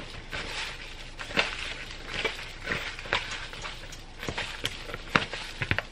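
Raw seasoned chicken strips squished and kneaded by hand in disposable plastic gloves in a plastic bowl: irregular wet squelches and small clicks.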